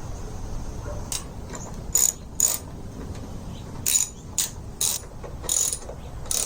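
Short, uneven clicks and scrapes of hand work on a Jeep Wrangler's windshield bracket, about eight in all.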